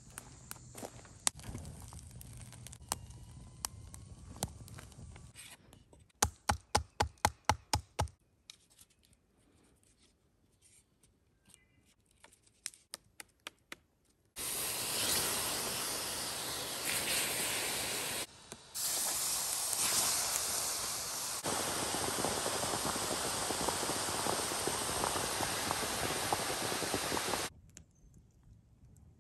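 A quick run of about nine sharp clicks or knocks. A little later comes a loud, steady hissing sizzle that lasts about thirteen seconds, breaks off once briefly, and stops suddenly: hot stones from a fire hissing in water.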